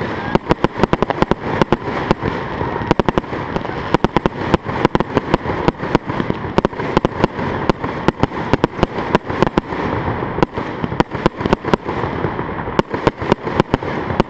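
Aerial fireworks being fired in a continuous rapid barrage: launches and shell bursts go off as sharp bangs several times a second.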